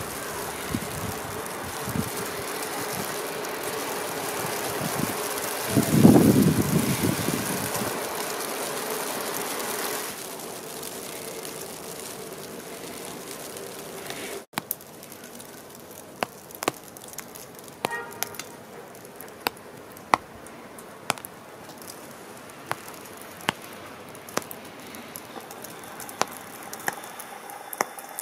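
Street traffic on a snowy, slushy road: a steady hiss of tyres, with one vehicle passing close and loud about six seconds in. Later the sound is quieter, with scattered sharp clicks and ticks.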